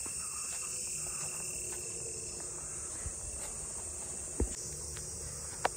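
Steady high-pitched chorus of insects, with a few short knocks about three and four and a half seconds in and near the end.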